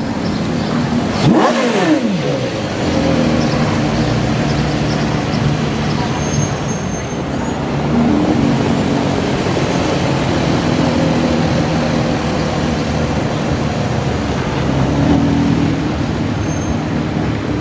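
Porsche Carrera GT's V10 engine blipped once, its revs dropping quickly about a second in, then running at low revs with light throttle as the car creeps along, with voices of onlookers.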